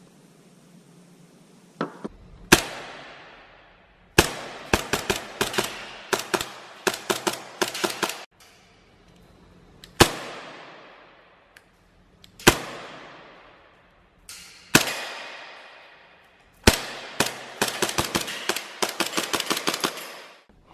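Gunshots: single shots with a long echoing tail, interspersed with two rapid strings of about four to five shots a second.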